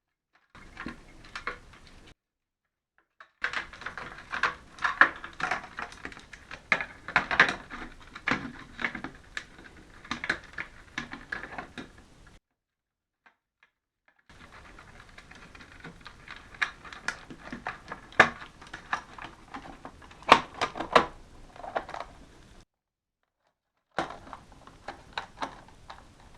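Irregular clicking and light knocking of small hard objects, in four stretches that each cut off abruptly.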